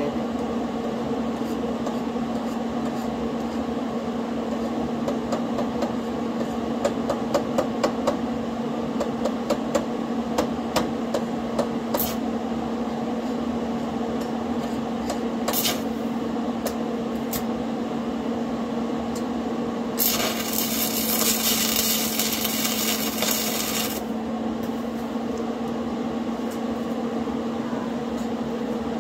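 Against a steady hum, light clicks and taps come in a quick run, then about twenty seconds in an arc welder strikes and lays a tack weld on steel plate: a dense crackle lasting about four seconds that cuts off sharply.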